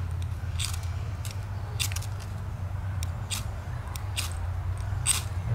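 Fire striker scraped again and again, about a dozen short high-pitched rasps at an uneven pace, the loudest near the end, as sparks are thrown into tinder to light a Christmas tree.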